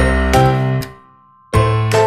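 Background music, a light melody of short notes over a bass line. It fades out to near silence for about half a second midway, then starts again.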